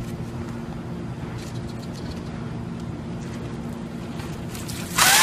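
Steady low hum of street background, with no speech. Near the end a bucket of ice water is tipped over a woman: a sudden loud splash, with her shriek starting over it.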